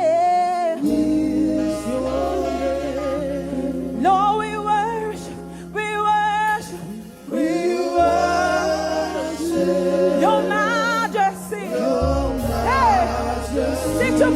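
Live gospel praise music: a lead voice sings long, wavering runs with vibrato over sustained low accompaniment notes, with backing voices joining in.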